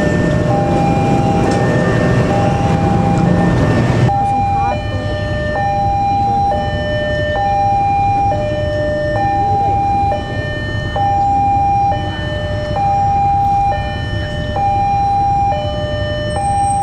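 Electronic level-crossing warning alarm sounding two alternating tones, each held just under a second, over and over. For the first four seconds a passing train's low rumble runs underneath, cutting off abruptly, after which the alarm goes on alone.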